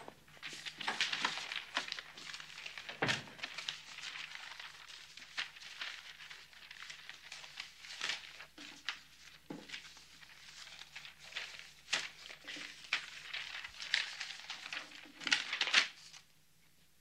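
Sheets of copy paper rustling and crinkling in quick, irregular handfuls as they are gathered and shuffled together, with one dull thump about three seconds in.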